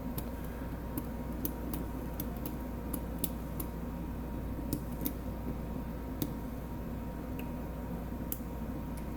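Light, irregular metallic clicks and ticks of a lock pick working the pins of a Medeco biaxial lock, a dozen or so spread unevenly, over a steady low hum.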